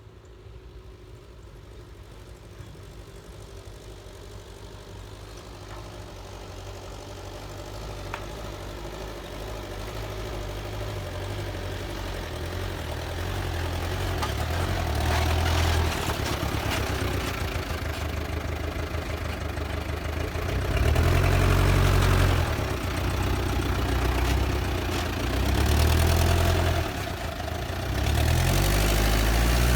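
Heavy machine's engine growing steadily louder as it draws near, then revving up and easing off several times in the second half, as if working under load.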